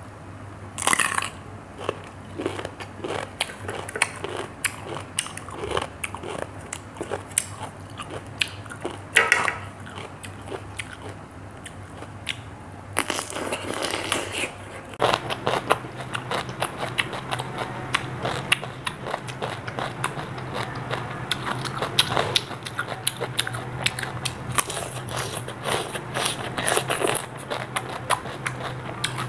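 Raw whole cucumber being bitten and chewed close to the microphone: sharp crunching bites in the first half, then dense, continuous wet crunching of the chewing.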